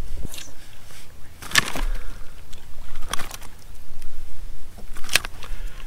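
Three sharp clicks and knocks about a second and a half apart, from handling a largemouth bass and a hand scale while the fish is weighed, over a low wind rumble on the microphone.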